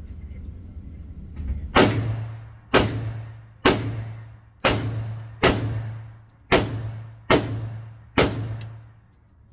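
Eight gunshots from a handgun in an MCK (Micro Conversion Kit) carbine chassis, fired slowly at a little under one shot a second starting about two seconds in. Each shot is a sharp crack followed by a short echo that dies away, over a steady low hum.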